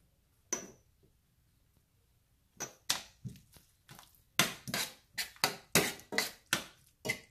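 Metal spoon scraping and knocking against a stainless steel frying pan while stirring a thick curry: one knock about half a second in, then from about two and a half seconds a quick run of scrapes, roughly three a second.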